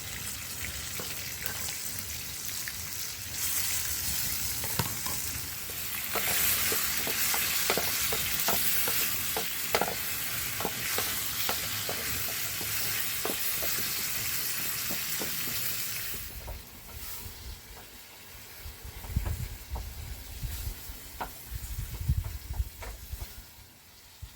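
Food sizzling and spitting in a hot pan, a steady hiss with small pops. About two-thirds of the way through the sizzle stops and low rumbling knocks follow.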